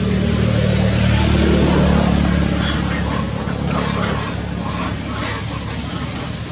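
A low engine hum, like a passing motor vehicle, swelling over the first two seconds and then fading, with a few short high chirps in the second half.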